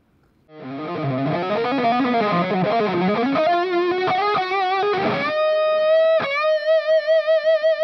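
Overdriven electric guitar through a Bad Cat Double Drive pedal, playing a fast lead run that starts about half a second in. From about five seconds in it holds a high note with wide vibrato, picking it again once.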